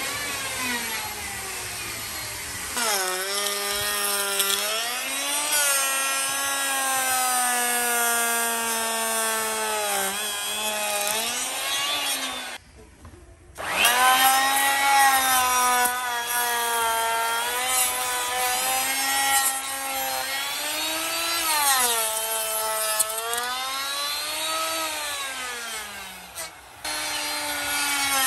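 A handheld electric power tool cutting wood: its motor whine keeps sagging in pitch as it bites into the plank and rising again as it frees up. It cuts out for about a second near the middle and dips briefly near the end.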